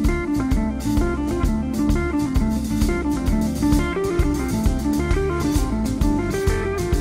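Live blues-rock band playing an instrumental passage: an electric guitar plays a single-note lead over bass guitar and a drum kit.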